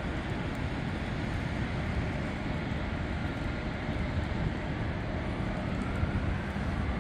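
Distant jet engines of a Boeing 767-300ER freighter running at the airport, a steady low rumble with a faint whine that rises slightly near the end.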